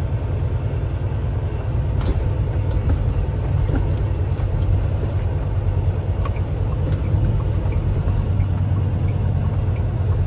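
Semi-truck's diesel engine running as the truck rolls slowly, a steady low rumble heard from inside the cab, with a couple of light knocks.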